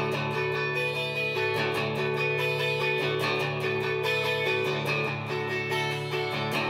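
Background music track led by strummed guitar, with a steady beat.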